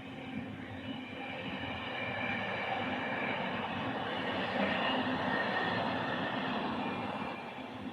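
A train passing on the line. Its running noise builds to a peak around the middle and eases off near the end.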